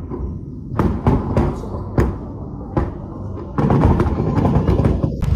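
Aerial fireworks shells bursting: a few separate booms in the first three seconds, then a dense, rapid barrage of bangs from about three and a half seconds in, over a constant low rumble.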